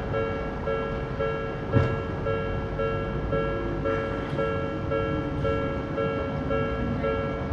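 Japanese railway level-crossing alarm with the Odakyu-style electronic bell tone, dinging about twice a second, over a low rumble with a single knock about two seconds in.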